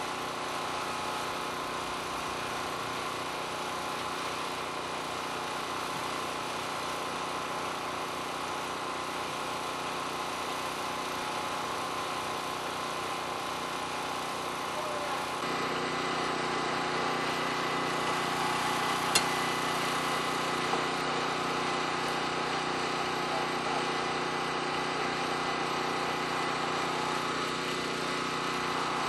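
An engine running steadily, a constant drone that gets a little louder about halfway through. One sharp click stands out about two-thirds of the way in.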